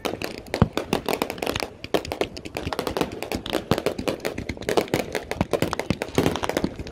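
Many consumer fireworks and firecrackers going off at once: a dense, irregular crackle of pops and bangs, with one heavier bang under a second in.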